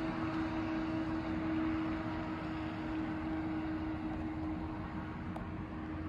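A steady mechanical hum holding one constant pitch over a background hiss, with one faint click about five seconds in.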